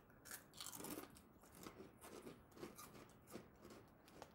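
Faint, irregular crunching of people chewing crunchy, cheese-flavoured fried snack sticks, a couple of crunches a second.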